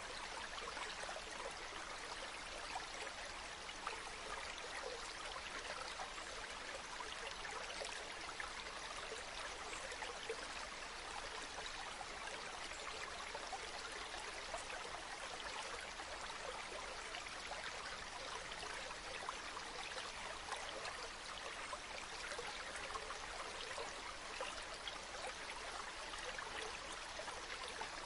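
Waterfall: water falling and splashing in a steady rush with a fine crackle, never changing.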